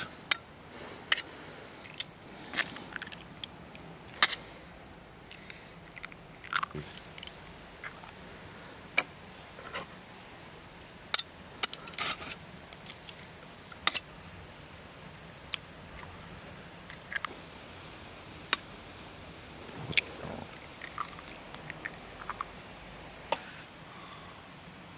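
Eggshells being cracked one after another with a kitchen knife blade over a wooden dish: a long irregular series of sharp taps and cracks.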